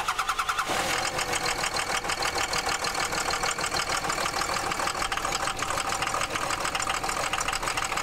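Dodge Ram's 6.7 L Cummins inline-six turbo-diesel, just started and idling with a rapid knocking clatter. The truck's complaint is a rough idle, later traced to cylinders 1 and 6 not performing to specification.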